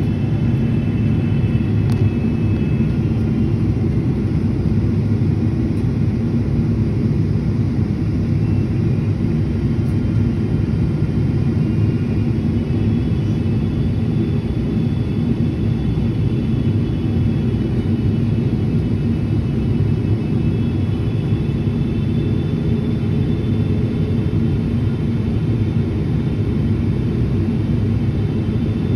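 Steady cabin noise inside a Boeing 777-300ER on its descent: an even low rumble of airflow and its GE90-115B engines, with faint steady high whine tones above it.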